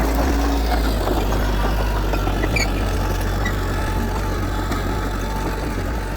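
Heavy diesel engine of earthmoving machinery running steadily at an even pitch, with a low drone and light clattering on top.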